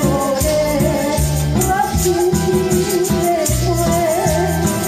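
A Taiwanese Hokkien pop song played on a backing track, with a woman singing the melody over it through a microphone and a hand tambourine shaken along to the beat.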